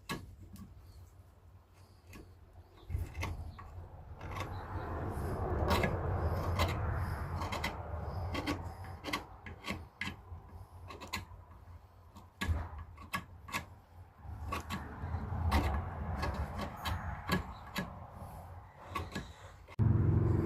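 Small pocket knife scraping and peeling bark off a spiky beech branch in short, irregular strokes, with many small clicks and scrapes. A louder low steady sound starts just before the end.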